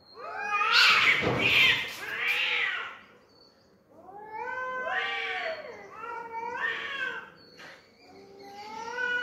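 Cats caterwauling at each other in a territorial standoff: long, drawn-out yowls that waver up and down in pitch. A short harsh noisy burst comes about a second in, a lull follows around three seconds in, then the yowling picks up again.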